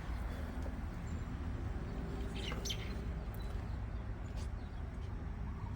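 A steady low rumble, with a few faint bird chirps about two and a half seconds in.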